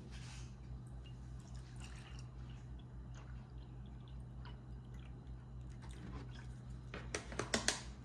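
Milk pouring into a glass, a soft liquid splashing as the glass fills. Near the end come a few sharp clicks and knocks, over a steady low hum.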